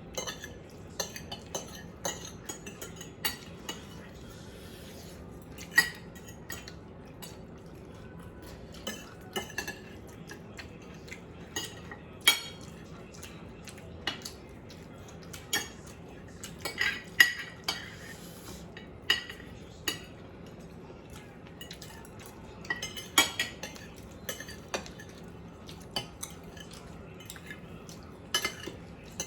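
Cutlery clinking and scraping against plates while eating: irregular sharp clinks, with a few louder clusters of clinks.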